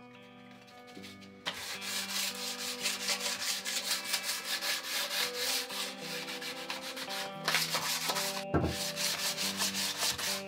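A wooden picture frame being sanded by hand, rubbed in quick back-and-forth strokes over an abrasive sheet laid flat on a workbench, starting about a second and a half in. A short low knock comes a little before the end.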